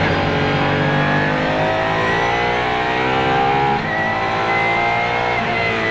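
Apollo IE's naturally aspirated V12 engine revving hard under full acceleration, heard from inside the cabin. The pitch climbs steadily, drops briefly about four seconds in at a gearshift, climbs again, and begins to fall near the end as the driver lifts off.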